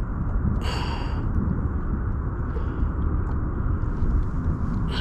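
Steady, uneven low rumble of wind buffeting the microphone on open water. A short high whir comes about a second in.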